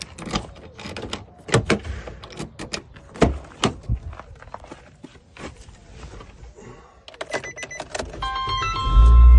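A run of irregular sharp clicks and knocks, like keys and car parts being handled. About seven seconds in, a phone ringtone of stepped electronic tones starts, and near the end a loud low rumble comes in under it.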